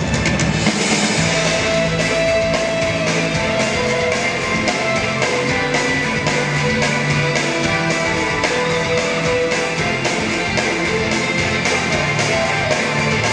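Rock-style band music with guitar and drum kit, playing steadily with sustained notes.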